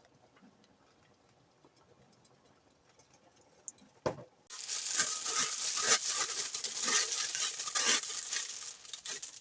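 A click, then about four and a half seconds of uneven crinkling and rustling, like a plastic bag being handled and opened.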